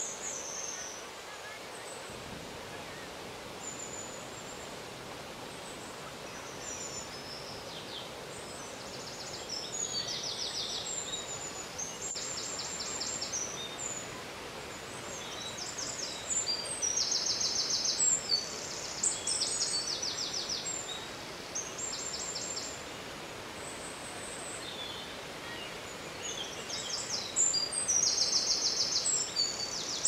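Steady rush of water from a waterfall and its rocky cascade, with birds singing over it in short, rapid, high trills and chirps that come thicker in the second half.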